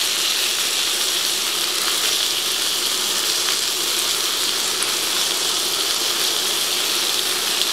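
Beef steak sizzling steadily in a little olive oil in a frying pan, freshly turned over to sear its second side, with carrots, green beans and garlic frying alongside.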